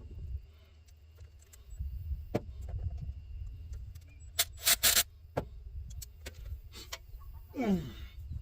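Metal parts and hand tools clinking and tapping while a carburetor spacer is bolted onto a throttle-body elbow: scattered sharp clicks, with two loud knocks about five seconds in. Near the end comes a short sound falling in pitch, like a grunt.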